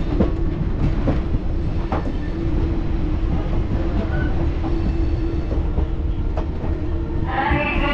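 Express passenger train running: a steady low rumble and rattle with a constant hum and a few sharp clicks. A voice starts near the end.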